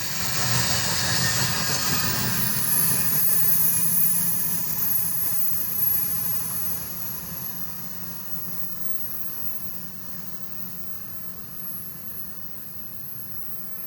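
Iron-ore freight train rolling past, a steady rumble and hiss that fades gradually as the train draws away.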